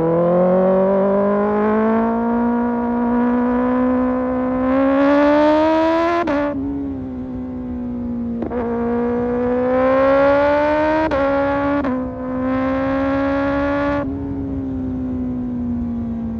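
Kawasaki ZX-6R sport bike's inline-four engine through an Arrow Pro Race exhaust, pulling hard and climbing in pitch, with several quick gear changes marked by sharp cracks and brief dips in pitch. The sound brightens in three stretches of harder throttle and eases back between them.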